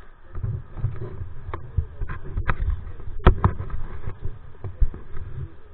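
Handling noise on a small action camera: cloth rubbing and dull bumps against the casing, with several sharp knocks, the loudest a little after the middle.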